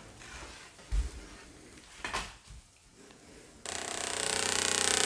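A few soft thuds and clicks. Then, about three and a half seconds in, a loud, harsh buzzing starts suddenly and holds steady.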